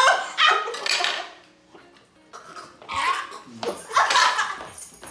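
Several people crying out with loud yelps that rise in pitch, one right at the start and more from about three seconds in, with a quieter gap between.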